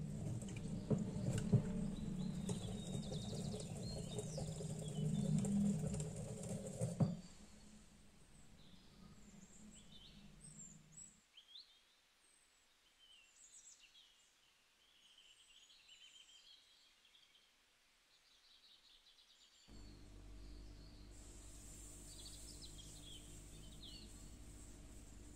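Birds chirping and singing through the whole stretch. For about the first seven seconds a wire whisk clicks against a ceramic bowl of batter over a steady low hum. After a nearly quiet gap, another steady low hum comes in about twenty seconds in.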